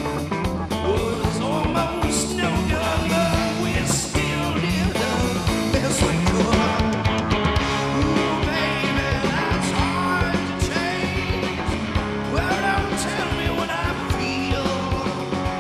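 Live rock band playing: electric guitars and drum kit, with gliding guitar lines and cymbal crashes several times.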